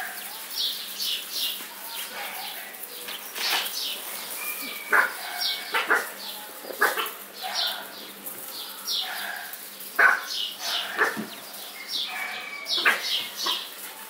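Several American Bully puppies yapping and whining in short, high calls while they play.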